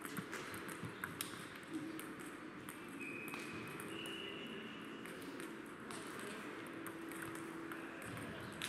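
Scattered, irregular clicks of table tennis balls striking bats and tables, echoing in a large sports hall, most of them in the first two seconds.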